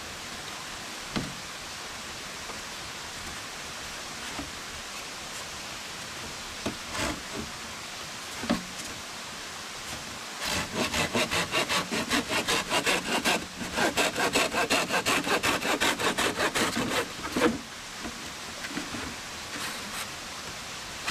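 A curved hand pruning saw cutting through a thick green bamboo pole in fast back-and-forth strokes. The sawing starts about halfway in, breaks off briefly once, and stops a few seconds before the end. Before it there are a few light knocks as bamboo poles are handled, over a steady background hiss.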